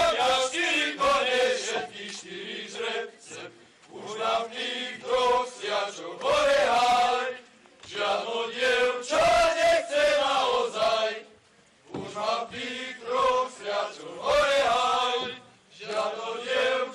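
A group of young men singing a highland (góral) folk song without instruments, in phrases of about three and a half seconds with short breaks between them.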